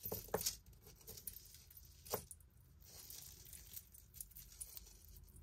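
Faint clinks and light ticks of a tangled metal chain necklace being picked apart by hand, with a few sharper clicks near the start and about two seconds in.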